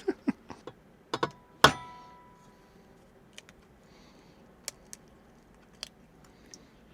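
An egg being cracked by tapping it against the rim of a mixing bowl. There are a few sharp knocks in the first two seconds, and the loudest, about a second and a half in, makes the bowl ring briefly. After it come a few faint clicks.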